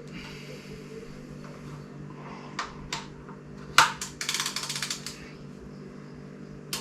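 A few sharp metallic clicks, then a quick even run of ratchet spanner clicks, about a second long, over a steady low hum.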